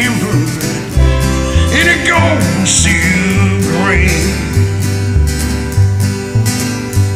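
Country-style song on acoustic guitar, strummed over a bass line that moves to a new note about once a second, with a bending melody line above it.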